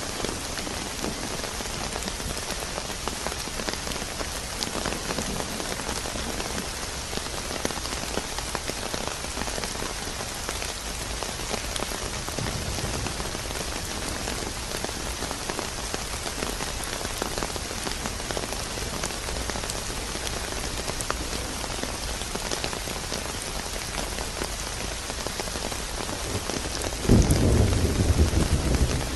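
Steady rain falling in an even hiss. Near the end a sudden, loud, low rumble of thunder breaks in over it.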